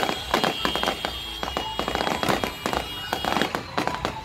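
Fireworks display: aerial shells bursting overhead in a dense, rapid run of bangs and sharp pops, one after another with no pause.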